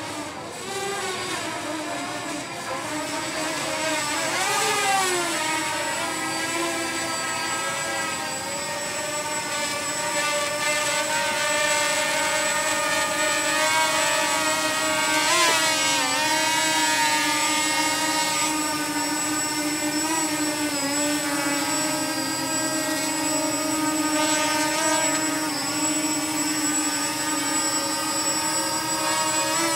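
Walkera Furious 320 quadcopter's brushless motors and propellers whining steadily as it descends on automatic return-to-home, the pitch wavering as the motors adjust. It grows louder over the first few seconds as it comes closer.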